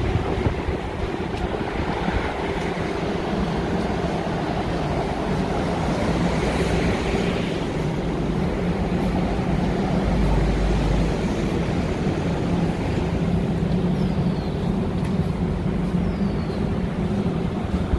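Steady street traffic: vehicle engines running and tyres on the road with a continuous low drone, and wind buffeting the microphone, most strongly about ten seconds in.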